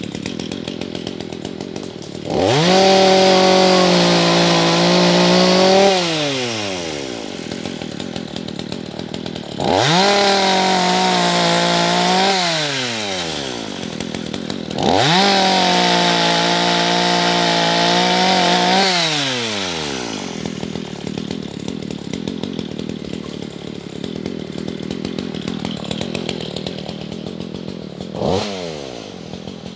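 Gas chainsaw idling between three full-throttle runs of about three to four seconds each. The engine revs up sharply, holds, then spools back down to idle each time, and a brief blip of throttle comes near the end.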